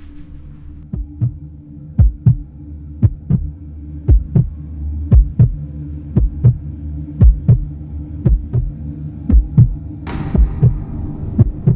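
Suspense heartbeat sound effect: a lub-dub double thump about once a second, starting about a second in, over a steady low drone. Near the end a hiss swells in over it.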